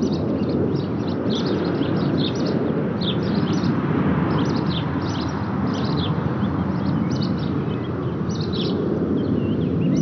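Distant jet roar from a Eurofighter Typhoon's two jet engines cruising at about 41,000 feet: a steady deep rumble that swells and eases slightly. Small birds chirp repeatedly over it.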